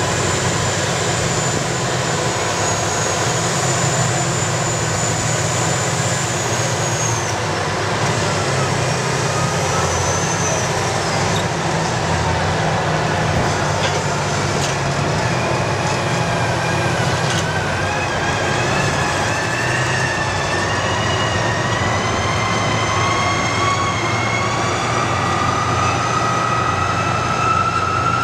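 Caterpillar 657 twin-engine scrapers' diesel engines running under load, a steady heavy drone. High whines fall about a quarter of the way in and then climb steadily through the second half.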